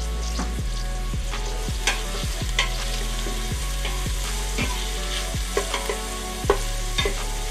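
Diced onion sizzling as it sautés in an Instant Pot's stainless steel inner pot, stirred with a wooden spoon that scrapes and knocks against the pot several times, most sharply near the end.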